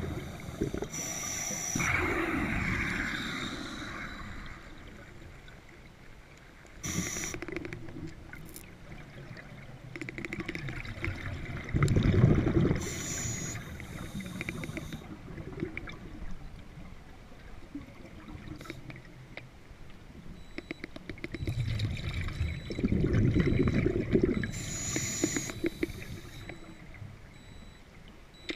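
Scuba divers' regulator breathing recorded underwater: short hissing inhalations, each followed by a louder, low rumbling burst of exhaled bubbles, about four breath cycles several seconds apart.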